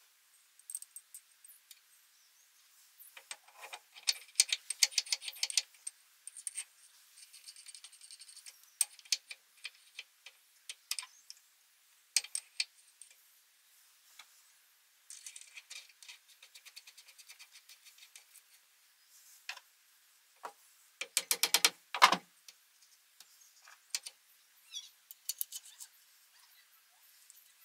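Metal clicks and rattles from hand work on the parts of an industrial rotary table. They include runs of rapid, evenly spaced ticking, the loudest run about three-quarters of the way through.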